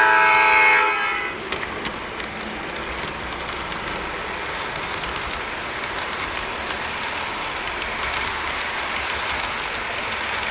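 MTH RailKing O-gauge CSX ES44AC locomotive's Proto-Sound 3 horn sounding a loud multi-note blast that cuts off about a second in. Then the steady running noise of the model train rolling along the shelf track, with light clicks of its wheels as the freight cars pass.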